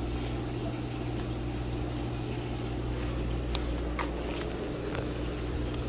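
Steady low machine hum with no speech, and a couple of faint taps as plastic fish bags are handled about three and a half and four seconds in.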